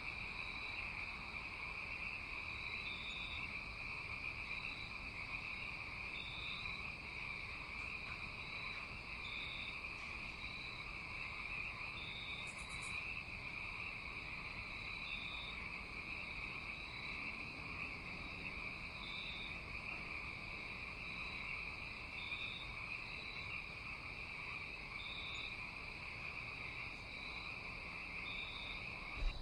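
Night chorus of calling insects, crickets among them: a steady high trill with short, higher chirps repeating about once a second over it. A low bump sounds right at the end.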